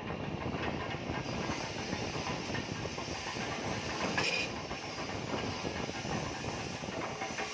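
CNC oxy-fuel cutting torch hissing steadily as it cuts through 10 mm steel plate, with a short sharp sound about four seconds in.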